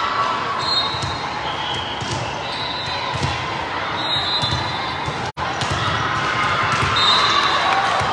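Game noise in a large indoor gym: a ball thudding, short high sneaker squeaks and the voices of players and spectators, all echoing in the hall. The sound drops out for an instant about five seconds in.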